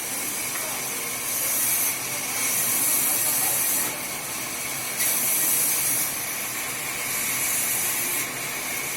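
Sawmill machinery running: a steady mechanical hiss, with a brighter high hiss that swells and drops back every second or two.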